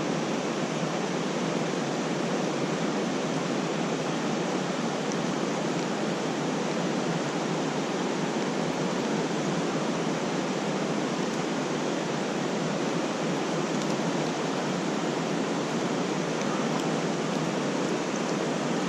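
Steady rush of a creek's fast water running high after rain.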